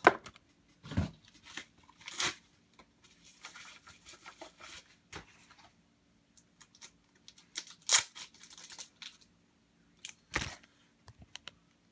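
Plastic card holders and packaging being handled: scattered crinkling and tearing with a few sharp clicks, the loudest near the start and about eight seconds in.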